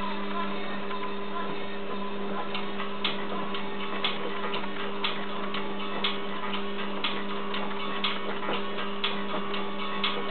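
A steady electrical hum, with faint regular ticks coming about twice a second from a couple of seconds in.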